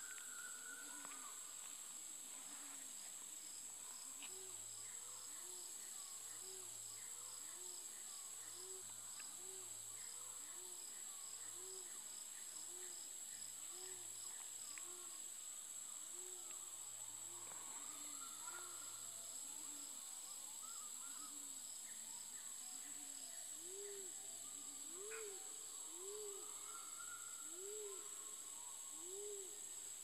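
A long series of low, arched hooting calls, about one a second, growing stronger near the end. Behind them runs a steady high insect buzz with a fast pulsing trill.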